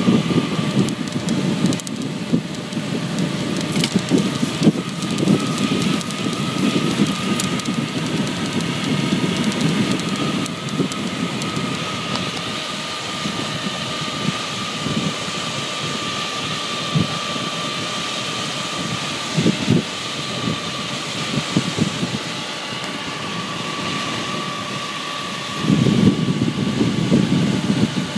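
Wind rushing and buffeting over the phone's microphone on a fast bicycle descent: a gusty low rumble that surges louder near the end, with a thin steady whine underneath.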